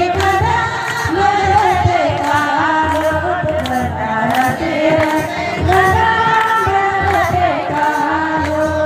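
A group of women singing a folk song together, with held, gliding melody lines over a steady beat of strikes about twice a second.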